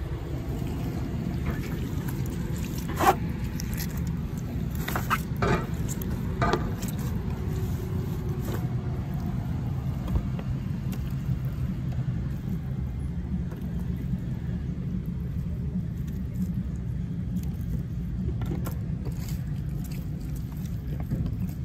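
A steady low rumble, with several sharp clicks and rattles between about three and seven seconds in and a few fainter ones near the end, as a disposable aluminium pan of smoked pork is handled and the meat pulled apart.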